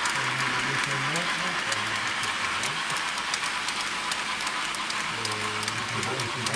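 Model freight train running on a layout behind a model steam locomotive: frequent light clicks of the wagons' wheels over rail joints over a steady rolling rush, with faint voices in the background.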